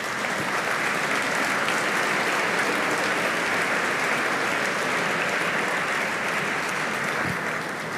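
Audience applauding steadily for several seconds, dying down slightly near the end.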